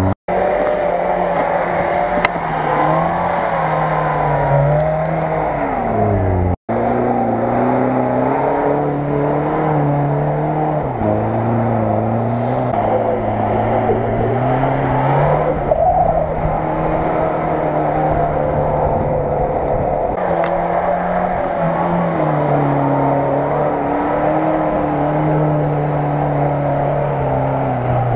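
Lada Niva's engine revving hard under load while its wheels churn through mud, the revs holding, then rising and falling again and again. The sound cuts out for an instant twice, once near the start and once about six and a half seconds in.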